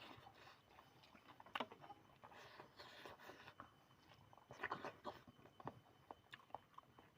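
A person eating chicken curry up close: faint chewing and biting, with a few sharp clicks, the loudest about a second and a half in.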